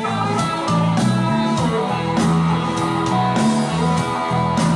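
Background music with guitar over a steady drum beat and a moving bass line.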